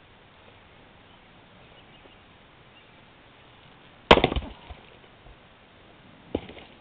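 An 8 lb splitting maul strikes a seasoned birch log section once, about four seconds in, with a short crackle of the wood splitting right after it. A lighter knock follows about two seconds later.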